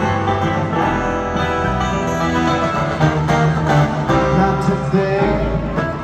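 Live bluegrass band playing through an arena sound system: guitar and banjo picking over bass, heard from the crowd.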